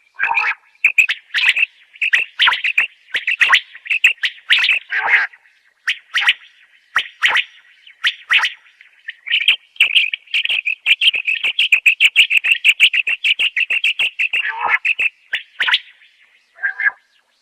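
Common quail calling: a long series of short, rapid pulsed notes, sometimes in separate groups and running into a fast, steady stream of notes in the middle.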